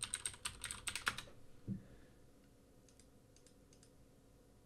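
Typing on a computer keyboard: a quick run of about a dozen keystrokes over a second or so, then a single dull thump, and a few faint clicks later.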